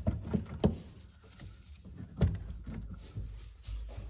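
Several sharp knocks and clicks of metal parts, the loudest about half a second and two seconds in, as a brake master cylinder is handled and worked free of its hydro-boost unit.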